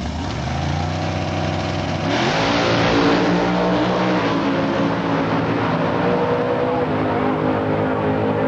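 Two outlaw super stock drag cars' V8 engines revving at the starting line, then launching at full throttle about two seconds in and running hard down the strip.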